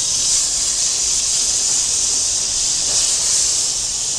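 Butter melting and sizzling on a hot carbon steel plancha: a steady, even hiss.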